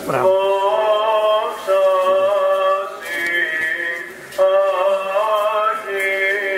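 Male church chanting: a slow melody sung in long held notes.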